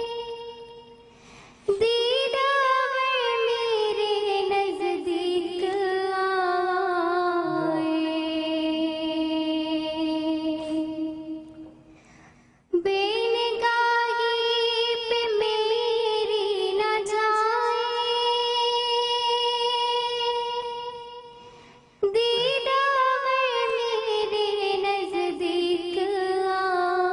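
A girl's solo voice singing a naat, an Urdu devotional song, into a handheld microphone. She sings in three long phrases of drawn-out, ornamented notes; each phrase fades away and the next begins abruptly.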